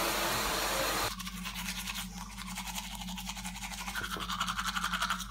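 Shower water spraying with a steady hiss, then, about a second in, a toothbrush scrubbing teeth in quick, even strokes over a steady low hum.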